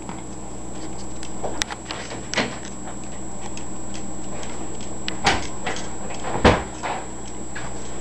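A few separate knocks and clatters on a kitchen counter over a steady low hum, the loudest and deepest about six and a half seconds in.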